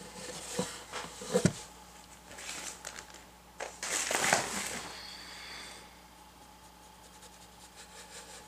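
Handling noise at the painting table: a few light knocks about a second in, then a scratchy rustle around four seconds in, as the painted board is turned on its textured pad.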